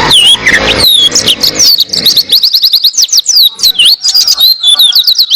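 White-eye (pleci) singing a long, fast, high-pitched song of quick up-and-down whistled notes, with a rapid run of repeated notes about halfway through.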